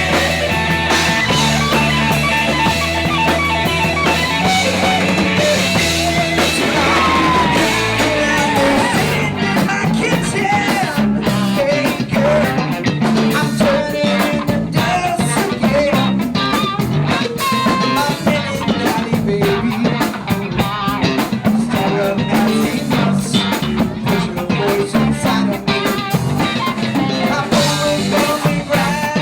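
Rock band playing: electric guitar, bass and drum kit with a steady beat.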